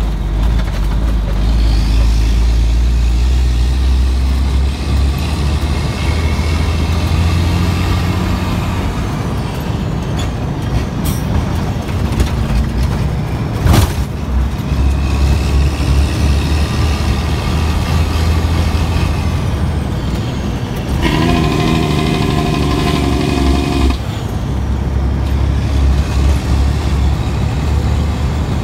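Cabover dump truck's Detroit Diesel 12.7-litre engine under way, its note climbing and dropping as it works through the gears. There is one sharp crack about 14 seconds in, and a steady multi-note tone lasting about three seconds near the end.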